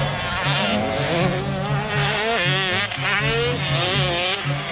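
Dirt bike engines revving on the track, their high whine rising and falling in pitch as the riders work the throttle, over background music with a steady beat.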